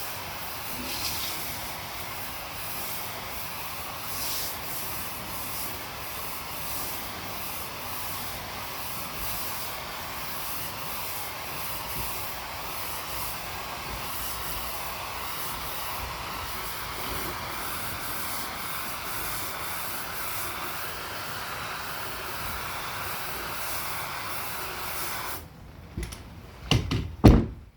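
Steady hiss of water spraying from a pressure washer wand onto a wooden deck, with the washer's engine off and only garden-faucet pressure, about 30 psi, driving the spray. The spray stops abruptly about 25 seconds in, followed by a few loud knocks near the end.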